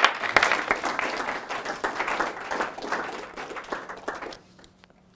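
A class of students applauding, many hands clapping at once; the applause thins out and dies away a little over four seconds in, with a few last scattered claps.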